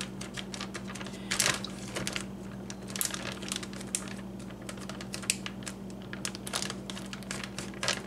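A plastic zipper-seal bag being pressed shut by hand: a quick, irregular run of small clicks and plastic crinkles as fingers work along the zip track.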